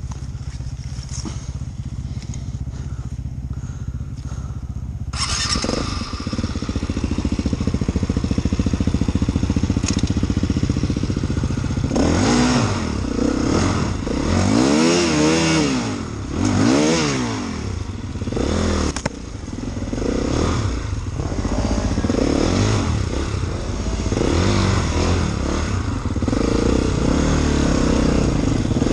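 Dirt bike engine idling, then opening up about five seconds in. Around the middle the revs rise and fall sharply several times, and the bike then runs steadily.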